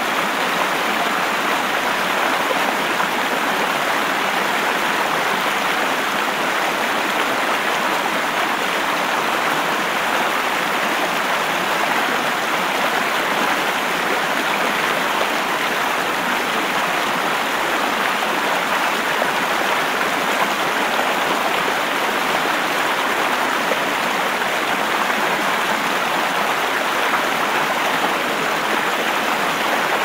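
Flowing river water: a steady, even rush of running water that holds without breaks or changes.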